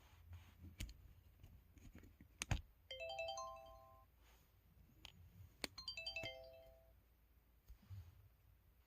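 MS500 flip phone's folder tone, heard twice: a short rising four-note electronic chime about three seconds in, then a matching falling chime about six seconds in, the tones played as the flip is opened and shut. A sharp click comes just before each chime.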